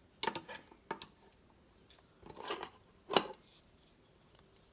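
Handling noise of small objects and packaging: a few sharp clicks and taps, with a short scratchy rustle about two and a half seconds in.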